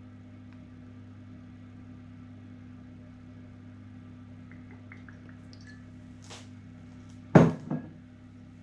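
A steady low hum with a few faint small clicks, then about seven seconds in one sharp knock and a smaller one, a metal spoon striking the glass mixing bowl as fish sauce is tipped into the egg mixture.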